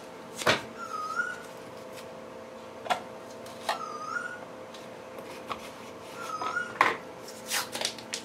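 Masking tape being pulled off the roll, torn and pressed down by hand, heard as a few sharp rips and clicks. Between them come short rising chirps every two or three seconds over a faint steady hum.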